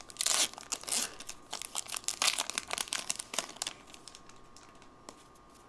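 Foil wrapper of a hockey card pack being torn open and crinkled by hand, a dense crackling that dies away about three and a half seconds in, leaving only a few faint rustles.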